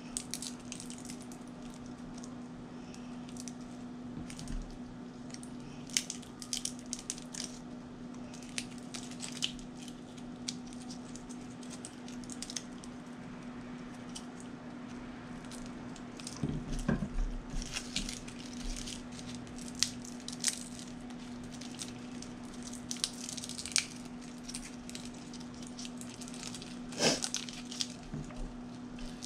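Scattered light clicks and taps of kitchen utensils and dishes being handled, over a steady low hum. There is a busier run of knocks about two-thirds of the way through and a sharper click near the end.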